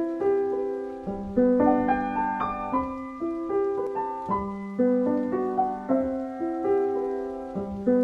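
Instrumental intro music: a melody of held notes and chords, a new note struck about every half second.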